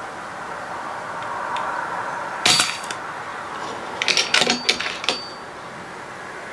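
A single sharp, moderated shot from an FX Crown PCP air rifle fitted with a Donny FL moderator, about two and a half seconds in. About a second and a half later comes a quick run of half a dozen sharp mechanical clicks and knocks.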